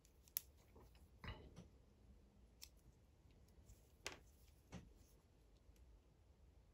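A handful of faint, short clicks and taps from small hand tools being handled at a watch repair bench, the sharpest about half a second in.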